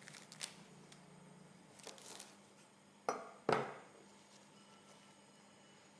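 Kitchen utensils handled while cooking: a few light clicks, then two sharp knocks about half a second apart, each with a brief metallic ring, like a utensil struck against a pot or pan.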